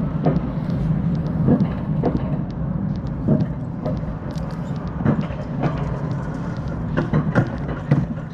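Alpine mountain coaster cart running along its track: a steady rumble with irregular sharp clacks about once or twice a second.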